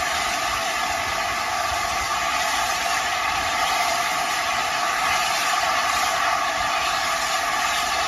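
Steam hissing steadily from a standing steam locomotive, LNER A4 Pacific 60007 Sir Nigel Gresley, with no change in level.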